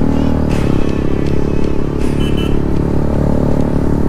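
Bajaj Pulsar motorcycle engine running through an aftermarket exhaust while riding at road speed, with a steady engine note.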